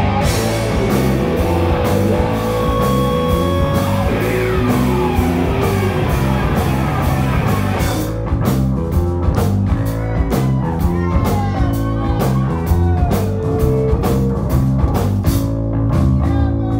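Live rock band playing an instrumental passage: electric guitars with notes bending in pitch over bass guitar and drum kit. About halfway through, the high cymbal wash falls away, leaving sharp, regular drum hits under the guitars.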